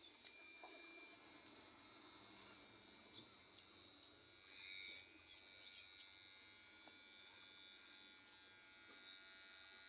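Electric hair clipper buzzing faintly as it runs through hair, getting louder for a moment around the middle and again near the end.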